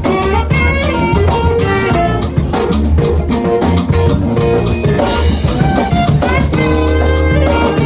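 Funk band playing an instrumental groove live: a drum kit beat with bass and guitar underneath a moving melodic line.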